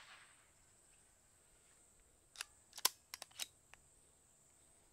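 The last of a .22 PCP air pistol shot's echo fades out, then, about two and a half seconds in, a quick run of about six light mechanical clicks over one second. These are the Brocock Grand Prix S6's side lever being worked to cock it and index the next pellet from the magazine.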